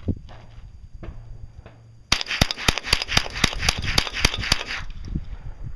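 Mossberg Tactical .22 semi-automatic rifle firing a rapid string of .22 LR shots, about six a second, starting about two seconds in and lasting nearly three seconds before stopping.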